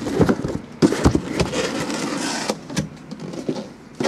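Sealed hobby boxes being slid out of a cardboard shipping case and set down: rubbing and scraping with several knocks in the first second and a half, quieter after about two and a half seconds.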